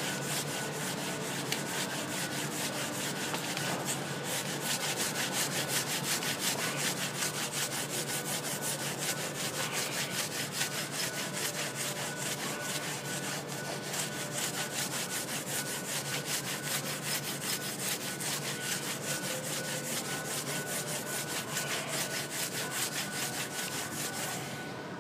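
High-speed grinder spinning a Scotch-Brite pad disc against the aluminum deck of a cylinder head, a steady whine over a dense rubbing hiss: final polishing of the head-gasket sealing surface. It stops just before the end.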